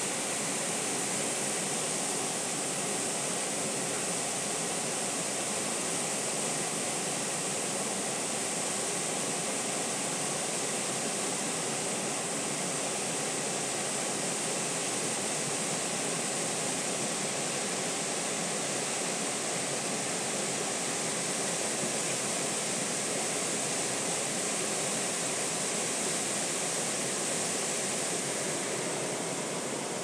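Waterfall running steadily: an unbroken rush of falling water.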